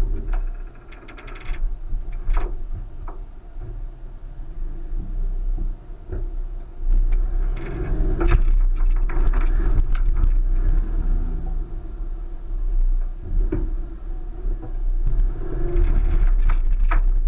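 1999 Subaru Forester's flat-four engine labouring as the car crawls up a rock step, getting louder about seven seconds in. Scattered knocks and thumps from the car working over the rocks.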